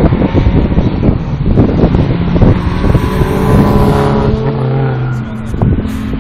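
A car's engine passing close at speed on a race track, its note falling slightly as it goes by, with heavy wind buffeting the microphone in the first half.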